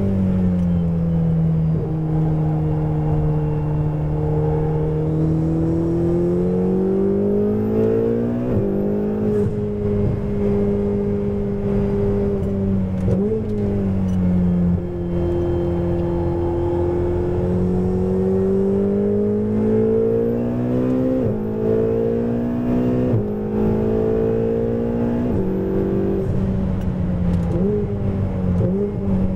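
Ferrari 488 GTB's twin-turbo V8 heard from inside the cabin at racing speed, its pitch dropping into corners and climbing again under acceleration, with several sudden pitch jumps at gear changes.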